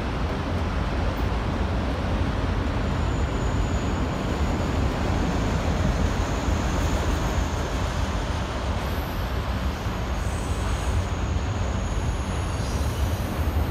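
Freight train of autorack cars rolling past on the track above, a steady rumble with no letup, with a faint high squeal about three seconds in and again near the end.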